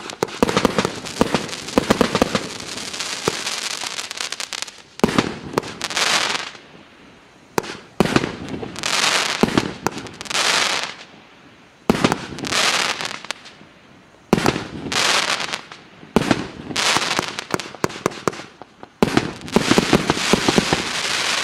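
FP B307 "Armageddon" 120-shot multi-calibre firework battery firing in sequence: a sharp shot followed by about a second of crackle, repeating every one to two seconds, with a quick run of pops near the end.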